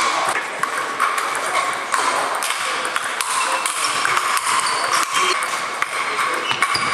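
Table tennis ball clicking off sandpaper bats and the table in a rally, mixed with the scattered clicks of balls at other tables, over steady background hall noise.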